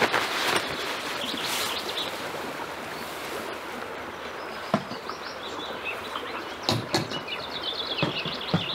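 Songbirds singing, with a fast trill of high repeated notes in the second half, over the rustle of nylon hammock fabric being pulled from its bag at the start. A few sharp knocks stand out.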